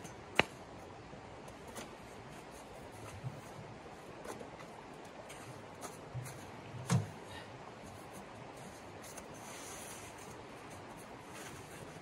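A few sharp knocks and clatters from handling a small metal tent wood stove: a loud click about half a second in and a heavier thump near seven seconds as it is set down. Under them, the steady rush of a flowing creek.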